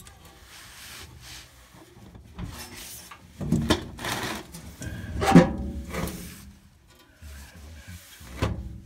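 Handling noise: a nylon jacket sleeve rubbing and brushing against the camera, mixed with several knocks and clunks from work on a furnace blower housing. The loudest knock comes about halfway through, with others a little earlier and near the end.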